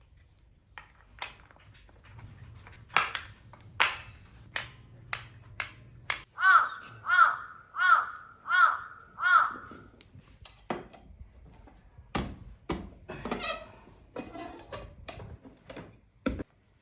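A crow cawing five times in quick succession, about a second and a half apart, among scattered sharp clicks and knocks.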